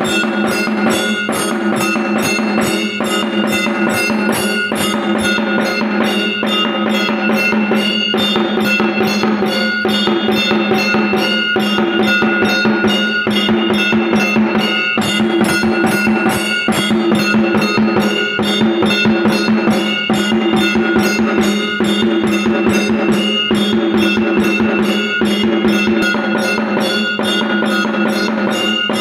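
Temple bell rung rapidly and without a break: fast, even strikes, several a second, with the bell's tones ringing on between them. It starts suddenly and is loud.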